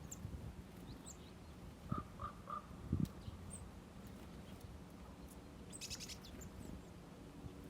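Small birds at a feeder chirping in short, high calls, with a quick run of calls near six seconds and three short lower notes about two seconds in. Two dull knocks sound about two and three seconds in.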